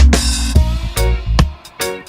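Background music with a drum beat and guitar: an upbeat funk/reggae-style track.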